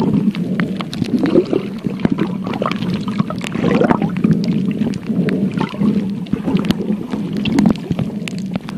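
Muffled water noise with gurgling swells and many small clicks, as picked up by a phone filming underwater.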